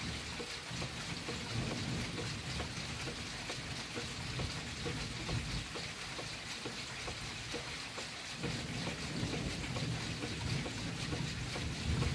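Heavy rain hissing steadily, with drops ticking on the window glass, and low thunder rumbling: one long roll early on that fades by about halfway, and another that starts about two-thirds of the way through.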